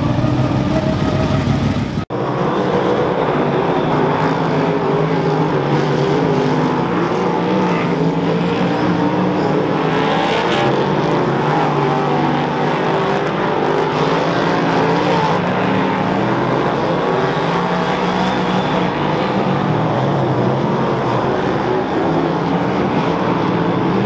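Superstock speedway cars' V8 engines running at race speed, several engines overlapping and rising and falling in pitch as the pack laps a dirt oval.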